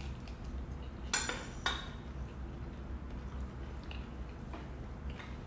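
Fork clinking against a plate twice, about a second in, with a few fainter taps of cutlery later, over a low steady hum.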